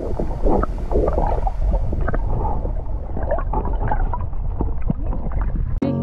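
Muffled underwater sloshing, gurgling and small knocks of water as a swimming dog paddles just below the surface, heard from under the water. It cuts off abruptly near the end into music.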